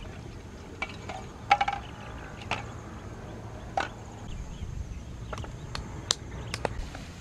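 Eggs being set one by one into a thin metal pan, a string of sharp clinks and knocks. The loudest, about one and a half seconds in, leaves the pan ringing briefly.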